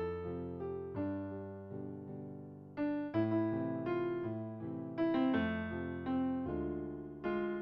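Background solo piano music: a slow melody of struck notes and chords, each left to ring and fade before the next.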